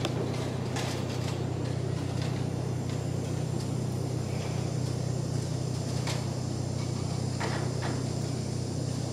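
Room tone of a large hall holding a crowd: a steady low hum with occasional small clicks and knocks from people shifting and moving.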